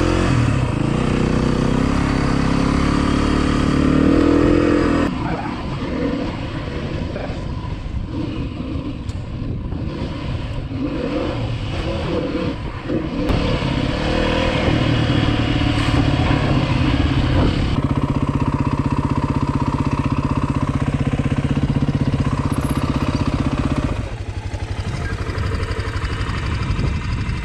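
Dirt bike engine running under way, its pitch climbing over the first few seconds as it accelerates, then rising and falling with the throttle on rough trail. It holds a steady note for a while, then drops to a lower, quieter idle near the end.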